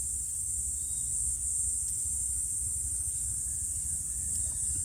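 Insects chirring steadily in a high-pitched, unbroken band over a low background rumble; no distinct tool or engine sounds stand out.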